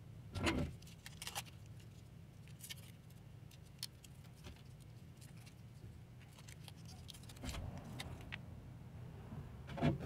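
Small metallic clicks and taps as a stockman pocket knife with freshly painted scales is handled, with a louder knock about half a second in and another near the end as it is set down on a wooden bench. A low steady hum runs underneath.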